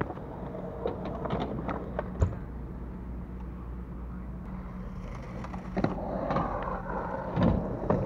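BMX bike riding on a concrete skatepark: a rolling rumble with scattered clicks and knocks, turning into louder clattering from about five seconds in.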